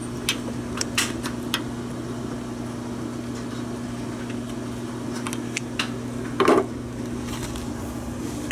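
Light clicks and taps of pliers working the clamp on the rubber fuel line at the carburetor, over a steady low hum. A louder knock comes about six and a half seconds in.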